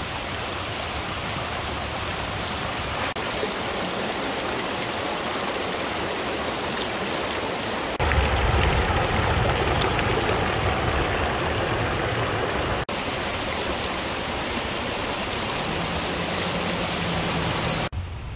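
Muddy flash-flood water rushing steadily over open ground. About eight seconds in it turns louder and deeper as the torrent pours over an earth bank close by, then drops back at about thirteen seconds.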